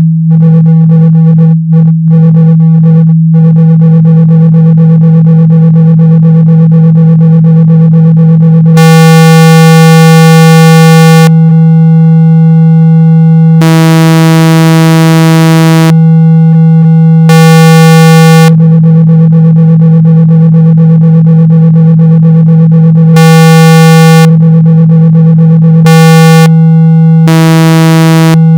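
Loud synthesized speaker-cleaning tone: a steady low hum at about 162 Hz, played to vibrate water and dust out of a speaker. Higher-pitched tones switch on and off over it every couple of seconds, with a few brief dropouts in the first few seconds.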